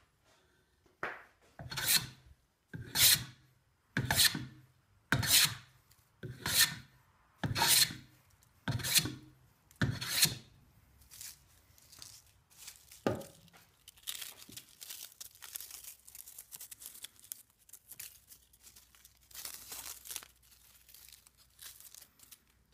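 Restored vintage Stanley Handyman hand plane cutting shavings from a board, about nine long scraping strokes roughly one a second, then one more stroke. A quieter stretch of quick, light rubbing follows, louder near the end.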